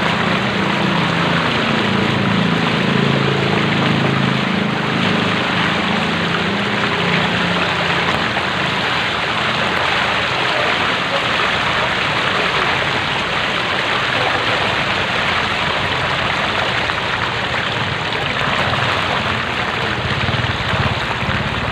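Steady splashing and rushing of shallow floodwater on a street as it is moved through, with a low hum underneath during the first several seconds.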